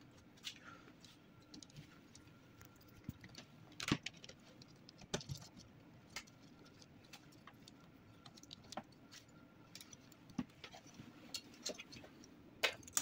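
Scattered light clicks and taps of small plastic and metal printer parts being handled and fitted while a laser printer's fuser unit and fuser film are reassembled by hand, a sharper knock about four seconds in and another near the end.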